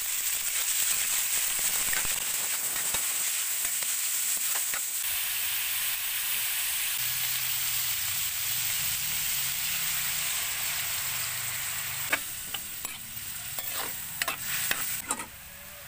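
Squid rings sizzling steadily as they fry in a wok. Near the end, a metal spatula scrapes and clanks against the pan several times as it stirs them, and the sizzle then dies down.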